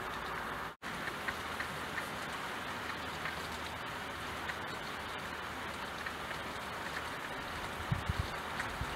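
Steady rain falling on a window, an even hiss with scattered drops ticking. The sound cuts out for an instant about a second in, and a few low thuds come near the end.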